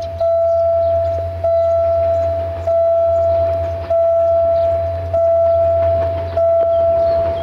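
Railway level-crossing warning bell ringing in a steady rhythm, about one ding every 1.2 seconds, each stroke fading before the next, over a steady low hum.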